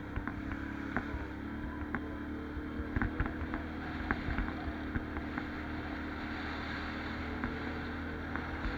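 Can-Am 570 ATV engine running at a steady speed, with scattered knocks and rattles as the machine goes over rough ground.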